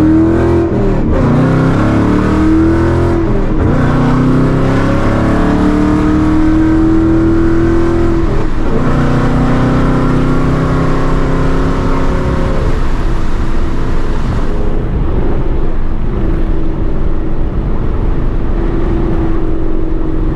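Ford 5.0 Coyote V8 with catless long-tube headers accelerating hard, the revs climbing and dropping at upshifts about three and eight seconds in. Near the middle it eases off and runs at a steadier, duller note for the rest.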